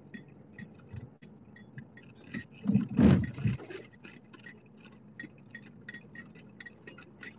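Inside a moving car's cabin: a quiet ride with a light, regular ticking throughout, and one brief louder sound about three seconds in.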